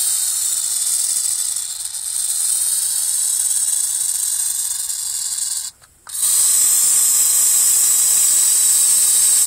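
Aerosol can of Black Flag insecticide spraying in two long bursts: a loud, steady high hiss that stops briefly about six seconds in, then starts again.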